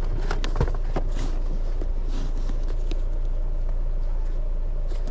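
Steady low hum of a running vehicle, with a few short clicks and a soft knock in the first second.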